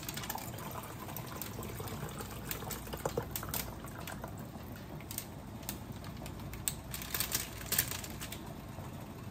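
Grease-soaked parchment paper crackling now and then as it is squeezed, while chicken drippings trickle out of it into a glass measuring cup.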